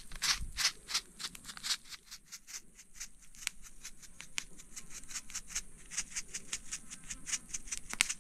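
Dry seasoning being shaken from a shaker onto raw fish: a quick, even run of dry, scratchy rattles, about five a second.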